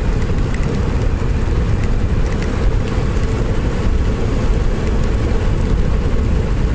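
Yamaha FZS1000 Fazer motorcycle on the move in the rain: a steady rush of wind and road noise over the inline-four engine's running, dominated by low rumble.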